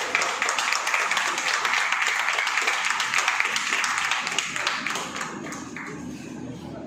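A small group of people clapping hands in quick, continuous applause that fades out about five seconds in.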